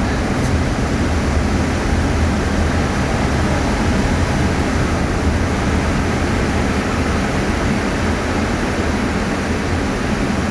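Steady rumble and hiss of a car driving slowly, with road and engine noise and no let-up.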